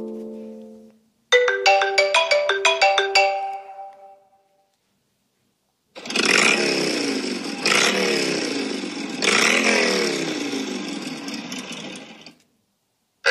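iPhone ringtones played one after another. A held chord dies away in the first second, then a quick run of bright plucked notes fades out. After a pause a buzzy electronic tone with repeated sweeping pitch glides runs for about six seconds and stops.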